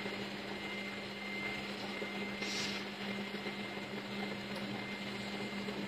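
Steady mechanical hum with a faint high whine over an even hiss, the sound of a running room appliance. A brief soft rustle comes about two and a half seconds in.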